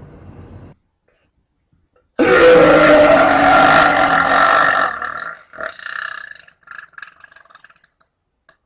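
A person's long, loud burp that starts suddenly about two seconds in, holds for about three seconds, then breaks into short stuttering pieces before dying away.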